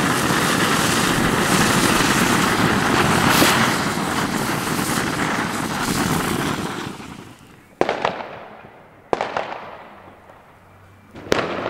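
Homemade cluster of firework fountains spraying sparks with a loud, dense hiss and crackle, which fades out after about six seconds as the fountains burn down. Three sharp firework bangs follow, a second or more apart.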